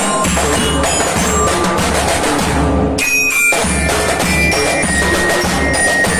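Drum band practising: massed drums with bass drum beats in a steady rhythm, with high ringing notes above. The drumming breaks off briefly about three seconds in, then resumes.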